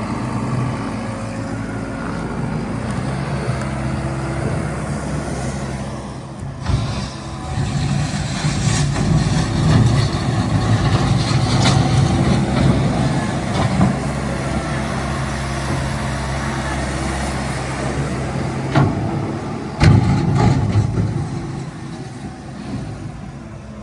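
Volvo MC115C skid steer's diesel engine running under load as it works, its pitch shifting now and then. A few sharp clunks come through, one about six seconds in and two close together near the end.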